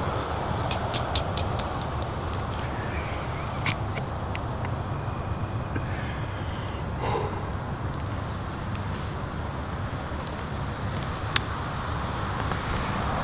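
Insects chirping in an even, repeating pulse, about three high chirps every two seconds, over a low steady rumble.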